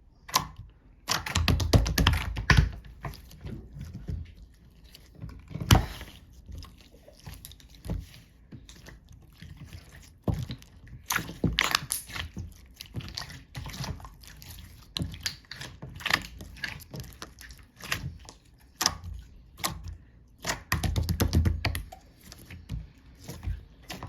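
Slime being squished and poked by hand: irregular sticky clicks and pops, with stretches of dense crackling about a second in and again near the end.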